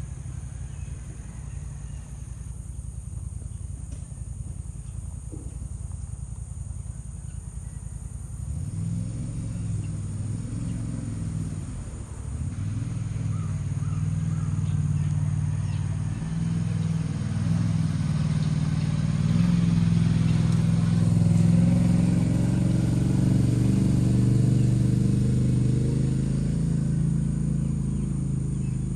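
A motor engine running, its pitch shifting and its level rising after about eight seconds.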